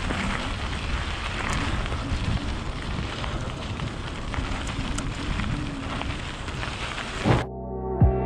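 Wind rushing over the microphone and mountain bike tyres rolling over broken, crumbling pavement in a steady, crackly noise. Near the end it cuts abruptly to music.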